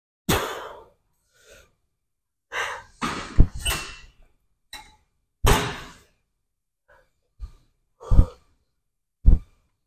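A man breathing hard during exercise: about eight short, forceful exhales and gasps, several of them hitting the microphone with a low thud.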